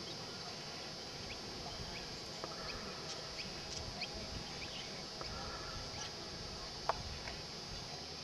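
Birds chirping: many short, quick calls scattered over a steady high-pitched hiss, with one sharp click about seven seconds in.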